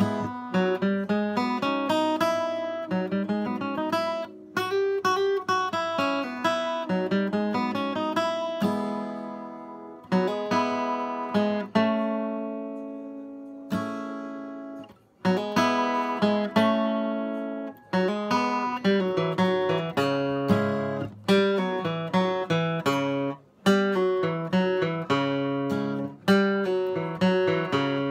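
Capoed steel-string acoustic dreadnought guitar flatpicked, mixing single-note runs with strummed chords, with a few brief breaks where the playing stops and restarts.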